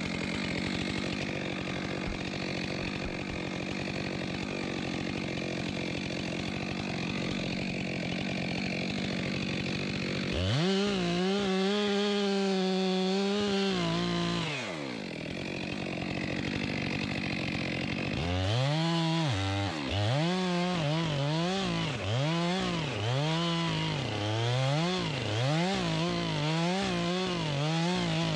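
Stihl chainsaw bucking a downed log, cutting the undercut. It runs steadily at a lower speed at first, is held at high revs for about four seconds about ten seconds in, then drops back; from about eighteen seconds on it revs up and down over and over as it works through the cut.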